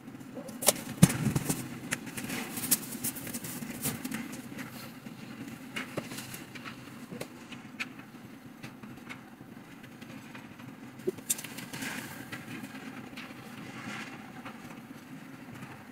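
Clicking and knocking of white IKEA steel-tube frame parts and a perforated metal mesh panel being handled and fitted together, busiest in the first few seconds and sparser after, over a steady low hum.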